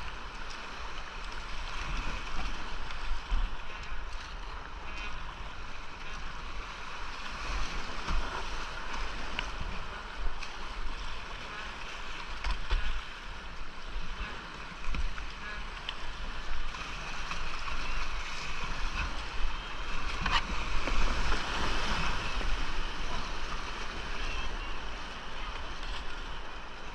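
Rushing whitewater of a creek rapid around a moving kayak, with splashing and irregular low thumps and wind buffeting on the GoPro. The water swells louder about twenty seconds in.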